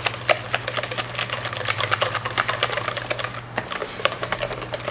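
Cake batter of eggs, sugar and oil being beaten by hand in a bowl: a utensil clicking rapidly against the bowl, several strokes a second, with a steady low hum underneath.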